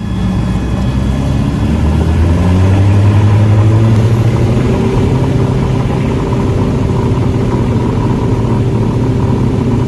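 Cessna 172 Skyhawk's four-cylinder piston engine and propeller, heard from inside the cabin. The engine climbs in pitch over the first few seconds as power comes up for the takeoff roll, then runs steadily at full power.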